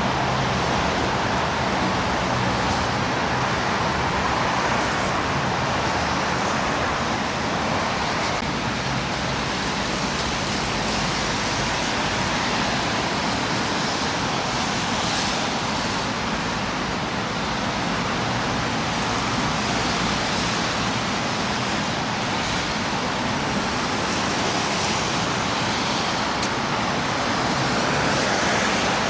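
Steady city road traffic: a continuous hiss of cars passing, with the level rising and falling only slightly.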